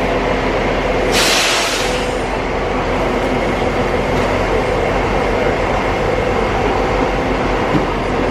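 A vehicle running steadily with a constant hum, and a short hiss lasting about a second, about a second in.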